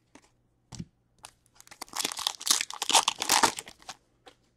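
Foil wrapper of a hockey card pack being torn open and crinkled: a dense crackling rustle from about a second in until about four seconds in, with a few light clicks before it.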